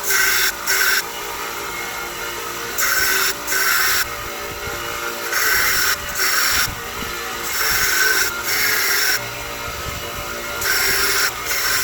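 A 1x30 belt grinder with a 60 grit ceramic belt running steadily, while a forged steel knife blank is pressed against the belt again and again. Each pass brings a louder, harsh grinding hiss lasting up to a second or so, and between passes the motor and belt run on alone.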